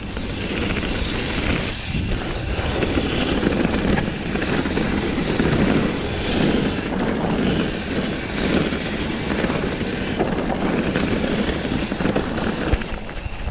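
Mountain bike rolling fast down a loose gravel and stone trail: steady rumbling tyre noise mixed with wind rushing over the microphone, rising and falling with the terrain.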